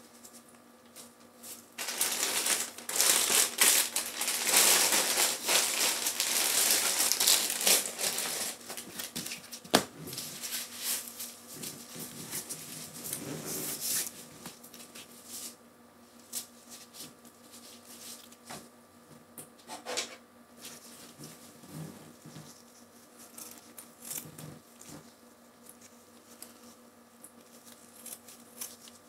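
Plastic and paper dressing packaging crinkling as it is handled with gloved hands. It is loud from about two seconds in until about ten seconds, then dies down to softer rustles and a few small clicks.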